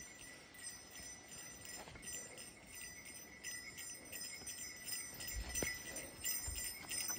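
A hiker's bear bell jingling with each step, its small metallic ringing repeating unevenly as it swings. Soft footfalls thud on the trail in the second half.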